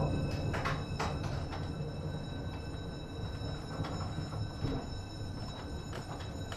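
Inside a 1915 Ringhoffer tramcar standing still: a low steady rumble with a few light clicks and creaks.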